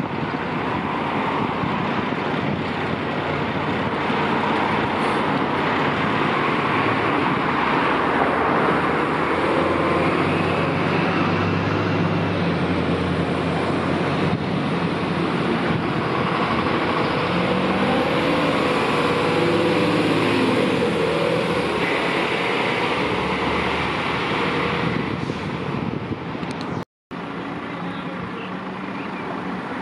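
Diesel engines of fire engines, turntable ladder trucks and a command van, pulling away at low speed one after another. The engine note rises and falls as they move off, and the sound cuts out for a moment near the end.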